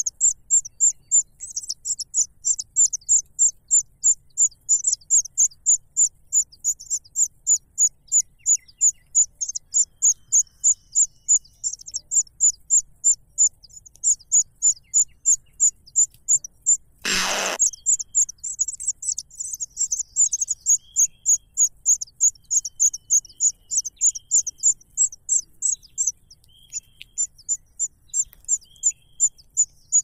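Nestling birds begging: a rapid, high-pitched cheeping, about four calls a second, kept up without a break except for a short pause near the end. A brief rustling noise about seventeen seconds in is the loudest single sound.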